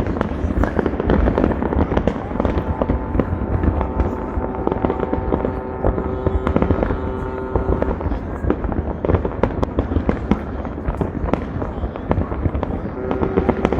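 Dense fireworks barrage: a continuous rapid run of bangs and crackles with no pause. A steady held tone sounds over it from about two seconds in for several seconds, and again near the end.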